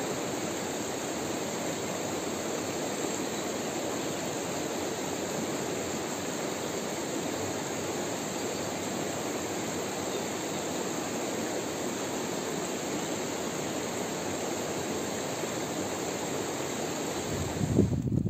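Small rocky mountain stream rushing steadily over stones. Near the end it cuts off suddenly and a few low thumps follow.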